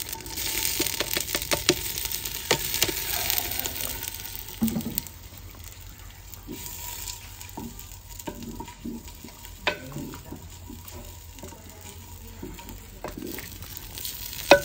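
Finely chopped onions frying in hot oil: a loud sizzle for the first few seconds that then settles to a quieter frying, while a spoon stirs them with scattered clicks and knocks against the pot.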